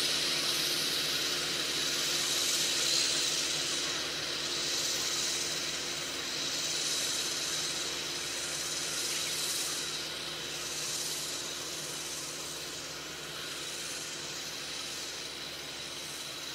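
A distant farm tractor running as it works a field: a steady low engine hum under a steady hiss, growing slightly fainter as the tractor moves away.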